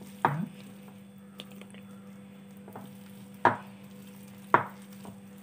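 A hand squeezing and mixing thick onion pakoda batter in a ceramic bowl: wet squelching with a few sharp slaps of hand and batter against the bowl, the loudest two about three and a half and four and a half seconds in. A steady low hum runs underneath.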